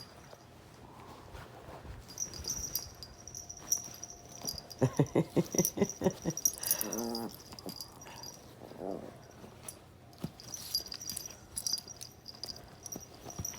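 Dogs play-fighting and vocalising: a rapid string of growls about five seconds in, followed by short higher-pitched yelps, with scuffling throughout.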